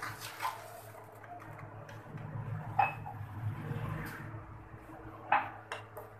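Metal ladle stirring sugar into warm milk in a non-stick kadai, with a few light clinks of metal against the pan over a low steady hum.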